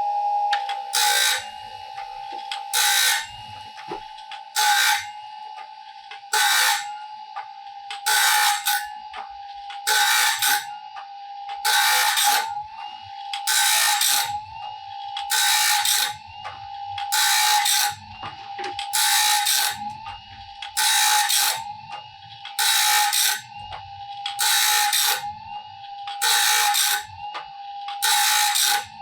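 Wood-Mizer BMS25 bandsaw blade sharpener running with a steady whine, and a burst of grinding about every two seconds as its grinding wheel sharpens one tooth after another on a dull sawmill blade.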